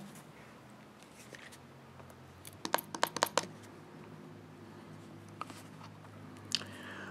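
Quiet handling sounds of a revolver and cleaning gear: a quick run of about half a dozen small clicks and taps a few seconds in, then a couple of single taps near the end, over a faint steady hum.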